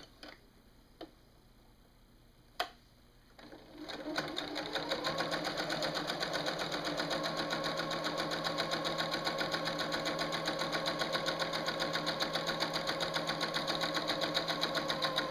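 Electric sewing machine stitching a seam through layered quilting cotton. After a few light clicks it starts up about three and a half seconds in, comes up to speed and runs steadily with a rapid, even needle beat over its motor hum, stopping near the end.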